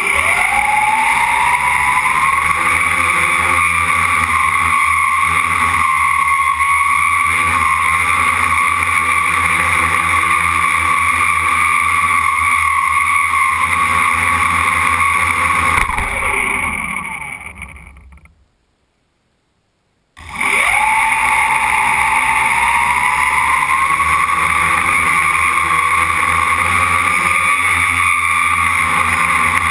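Quadcopter's brushless motors and propellers spinning up with a rising whine, then running at a steady high whine. About 16 seconds in they wind down to silence, and about 20 seconds in they spin up again with the same rising whine.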